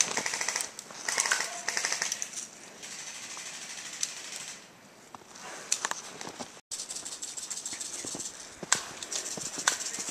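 Airsoft electric rifle firing rapid full-auto bursts: a short burst at the start, another about a second in, and a longer one from about seven seconds in.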